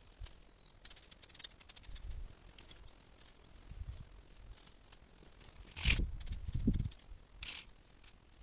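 Crisp rustling and crackling of cut hedge branches and trimmings being handled, with louder rustles and dull thumps a little after the middle.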